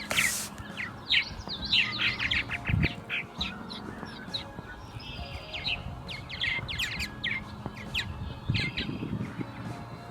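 A colony of purple martins calling: a busy chatter of many quick, overlapping chirps.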